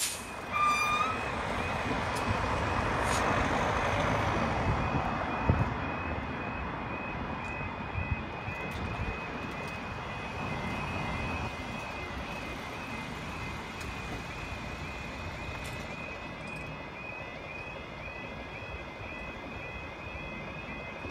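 UK level crossing road-warning alarm sounding without a break, a repeating high two-tone warble, as the lights flash and the barriers come down. A car passes over the crossing in the first seconds, and the traffic noise eases after about ten seconds.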